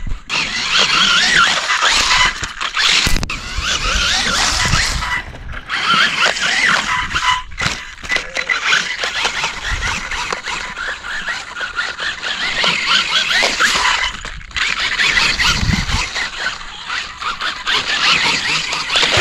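A radio-controlled rock bouncer's electric motor and gear drivetrain whining, the pitch rising and falling quickly with the throttle as the wheels spin in loose sand, with sand being thrown. The sound breaks off briefly a few times.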